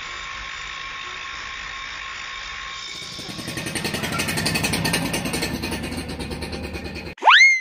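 An angle grinder grinds on a steel blower housing with a steady whine. It cuts to a scooter engine running with a rhythmic putter. Near the end a loud whistle-like sweep shoots up in pitch and slides slowly down.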